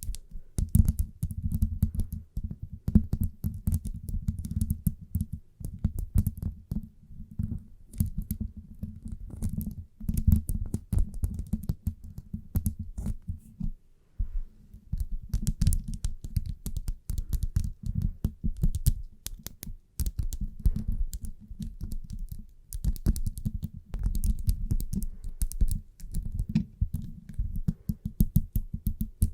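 Fingernails tapping rapidly, close to the microphone, in fast irregular clicks over a low muffled rumble, pausing briefly a couple of times.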